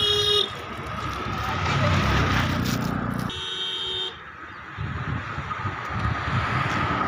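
Vehicle horn honking: a steady blare that breaks off about half a second in, and a second honk of about a second a little past three seconds. Rumbling noise and a thin steady whine run underneath.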